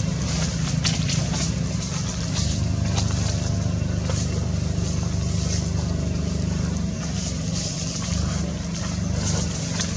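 Steady low motor hum, with faint scattered high clicks and ticks above it.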